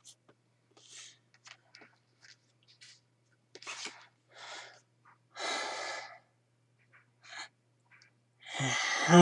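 A man's breathing and mouth noises while he signs without speaking: short puffs of breath and small clicks, a longer breathy exhale a little past halfway, then a louder voiced breath near the end.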